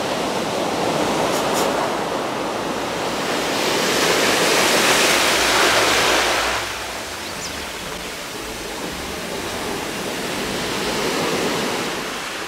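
Ocean surf breaking on a rocky shore: a steady rush of waves that swells into a louder surge of water from about three and a half to six and a half seconds in, then falls back to a softer wash.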